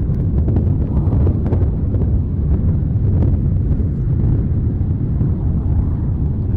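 Volcanic eruption rumbling: a loud, steady, deep roar with faint crackles scattered through it.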